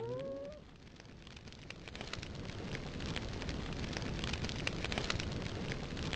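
A dog's yelp or whine trailing off in the first half second, then a steady crackling, hissing noise full of small pops that builds up over the next couple of seconds and holds.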